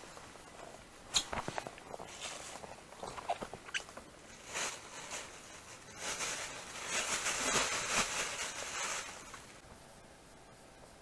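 Handling a freshly caught fish and a mesh bag on a foam mat: a few sharp taps and knocks in the first seconds, then about three seconds of rustling as the fish goes into the mesh bag of fish, fading away near the end.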